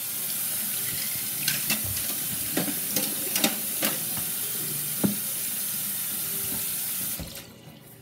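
Kitchen tap running into a sink while hands are washed under it, with a few short knocks and clinks against the basin. The water shuts off about a second before the end.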